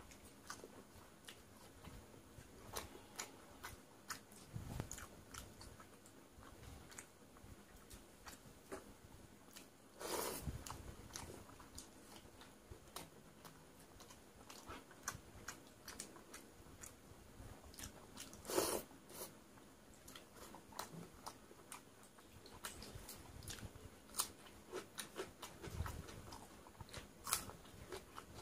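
Close-up chewing and crunching of fried lentil fritters with watery fermented rice eaten by hand, with many small mouth clicks and a few louder bites about ten and eighteen seconds in.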